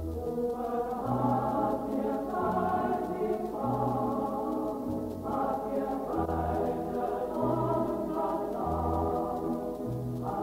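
Music: a choir singing held notes over an instrumental accompaniment, with a bass line moving to a new note about once a second.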